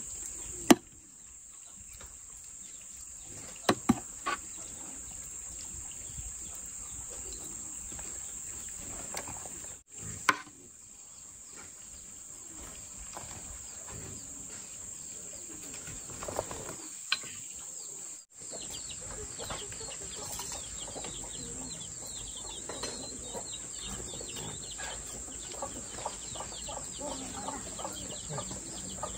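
Hens clucking in a farmyard over a steady high-pitched hiss. There are a few sharp clicks of a metal spoon on the vegetables in the first seconds and about ten seconds in.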